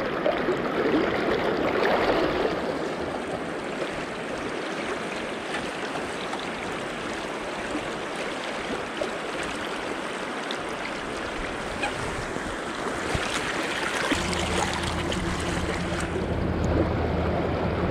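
River water rushing steadily. A low, steady hum joins about fourteen seconds in.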